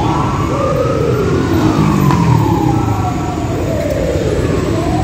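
A wailing siren, its pitch sweeping slowly up and down, over a low steady street rumble.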